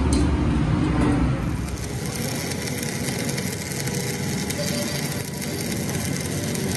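Stick (arc) welding on a steel truck rim: a steady crackling hiss of the arc, which sets in about a second and a half in after a low hum.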